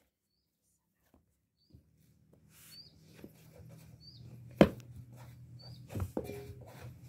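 Hands kneading dough on an aluminium tray, with knocks and slaps of the dough against the metal starting about two seconds in; the loudest comes a little past halfway and another follows about six seconds in. A low hum runs under it, and a bird chirps several times.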